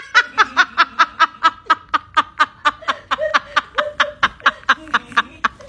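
Laughter: a long, unbroken run of rapid, even 'ha' pulses, about five a second.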